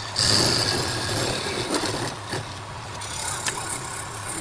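Wood lathe running with a steady hum, while a turning tool scrapes against the spinning workpiece for about two seconds, then eases off.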